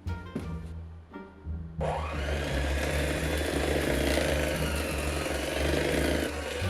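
Electric mixer starting about two seconds in and running steadily while it beats cookie dough, then stopping near the end, over background music.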